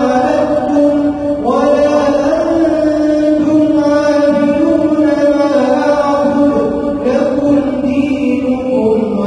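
A man reciting the Quran in a slow, melodic tajweed style, drawing out long held notes that slide from one pitch to the next.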